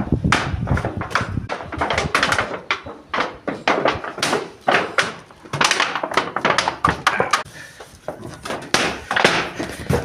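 Irregular knocks and thuds of carpentry on plywood ceiling boards, several a second.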